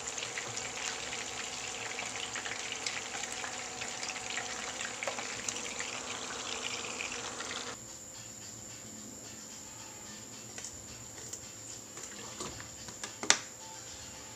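Chicken pieces shallow-frying in hot oil in a nonstick pan: a steady crackling sizzle that cuts off abruptly about eight seconds in. After that it is quieter, with one sharp clink near the end.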